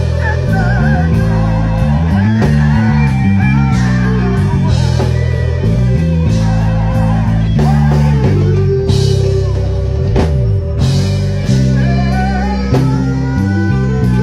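A live gospel band playing at full volume: keyboards, electric guitar and a drum kit, with a busy low line moving underneath and regular drum and cymbal hits.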